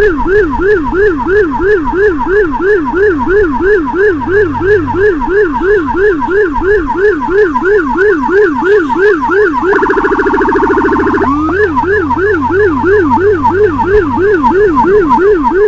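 Whelen electronic siren on an escort motorcycle sounding a fast yelp, rising and falling about three to four times a second. About ten seconds in it switches to a much faster trill for a second and a half, then goes back to the yelp.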